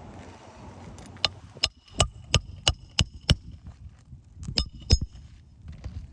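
Hammer striking roofing nails into asphalt shingles: a run of seven sharp, ringing metal strikes at about three a second, then after a short pause two more.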